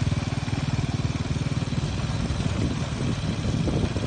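Small motorcycle engine of a saleng (motorcycle-and-sidecar tricycle) running with a rapid, even putter that turns rougher about halfway through.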